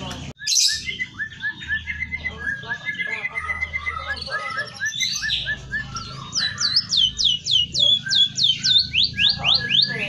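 Caged emprit kaji songbird singing: a quick string of short chirps, then near the end a rapid run of whistled notes, each sliding down in pitch, about three a second. Its song is trained with canary and white-rumped shama phrases.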